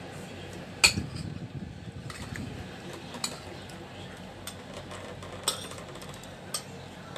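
Metal spoon clinking and scraping against a plate: one sharp clink about a second in, then a few lighter ones.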